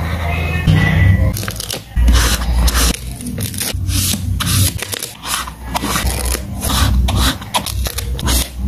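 Colored pencil scratching back and forth on a paper journal page as it shades an area, then stickers being peeled off and rubbed down onto the page; a fast, irregular run of short scratchy strokes.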